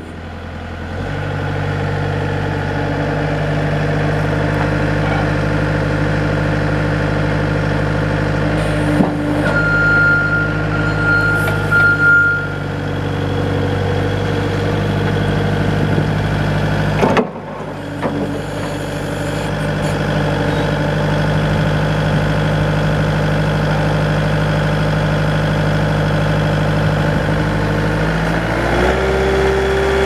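Bobcat S300 skid steer's Kubota four-cylinder diesel engine running at a steady speed. Its note steps up about a second in and changes again near the end, with a brief break about halfway through and a thin steady whine for a few seconds before it.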